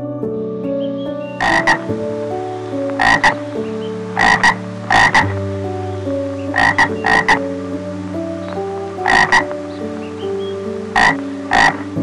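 Frog croaking in short, sharp calls that come mostly in pairs, about eight pairs spread evenly over the stretch, over soft ambient background music.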